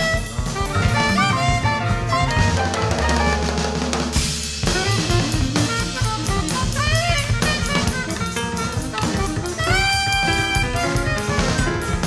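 Free-jazz quartet recording: alto saxophone lines that bend and slide in pitch over busy drum-kit playing, acoustic bass and piano. A long held horn note comes about ten seconds in.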